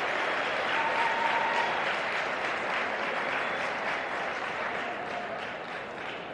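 Audience applauding, the clapping slowly fading away.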